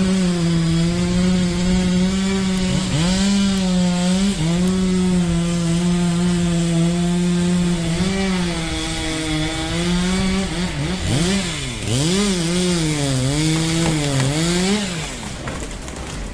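Chainsaw running at high speed while cutting, its pitch dipping briefly now and then under load. Later it revs up and down repeatedly, roughly once a second, before easing off near the end.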